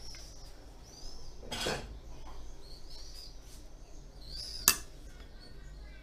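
Food being set into a glass baking dish: soft taps and a few clinks against the glass, with one sharp clink about three-quarters of the way through. Short high chirps recur in the background.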